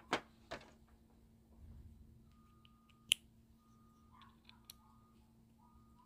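A few small, sharp clicks and light scrapes of a small driver and knife parts being handled on a tray, the loudest click about three seconds in. Behind them, from about two seconds in, a garbage truck's reversing beeper sounds faintly, on and off.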